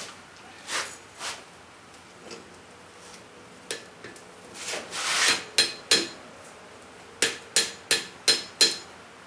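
Blacksmith's hammer striking hot steel on an anvil with a metallic ring: a few scattered blows, a brief rasping scrape around the middle, then five quick strikes in a row near the end.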